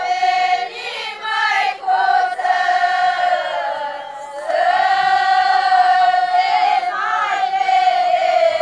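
A large group of women singing a Romanian religious folk song together, unaccompanied. They hold long notes, with short breaks between phrases about a second and four seconds in.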